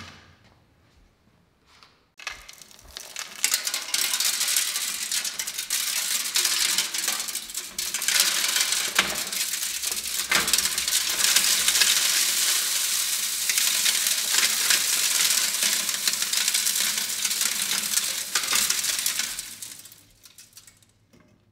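Coarse soil sample of gravel and sand being poured from a tray into a stack of steel test sieves: a dense, continuous rattle and hiss of grains hitting the wire mesh and metal rims. It starts about two seconds in and fades out shortly before the end.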